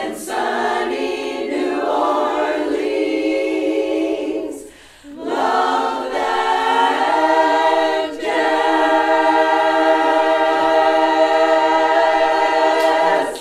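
Women's barbershop chorus singing a cappella in four-part harmony. After a short break for breath about five seconds in, they hold one long final chord for the last five seconds, which cuts off at the end.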